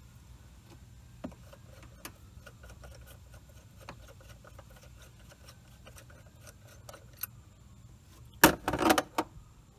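Socket wrench on an extension working a small 10 mm bolt loose under the hood, giving faint irregular metal clicks, then a loud clatter of metal tools and parts being handled about a second before the end.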